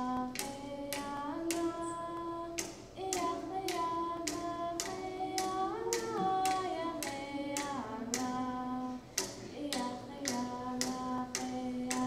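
Yup'ik drum song: large frame drums struck in a steady beat of about two strokes a second, under singing voices holding and sliding between long notes.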